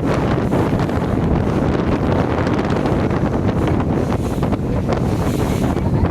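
Wind buffeting the microphone as a steady low rumble.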